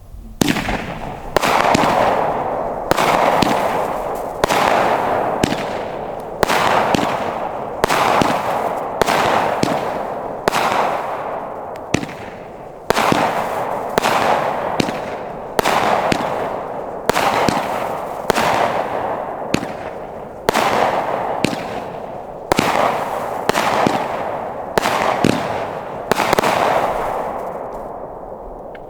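Mad Ox Reaper Drone 200-gram firework cake firing its shots in succession, roughly one a second, with a short gap about halfway. Each shot is a sharp report followed by a noisy burst that fades out before the next.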